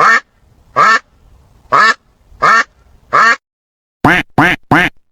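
Duck quacking: five separate quacks about a second apart, then three quick quacks in a row near the end.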